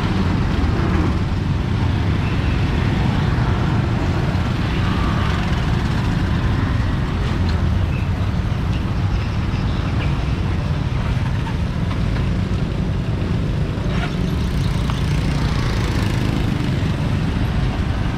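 Steady road-traffic noise with a constant low rumble.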